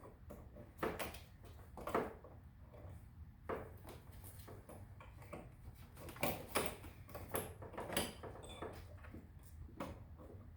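Scattered light clicks and knocks of a plastic wiring connector being handled and pressed onto the plug at the back of a motorcycle headlight, over a faint low hum.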